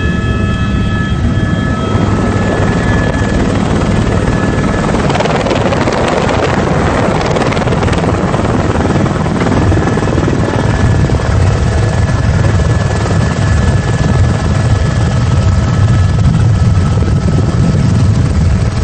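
Helicopter running loud and steady, with its rotor beating over a constant turbine whine. A hiss swells for a few seconds midway.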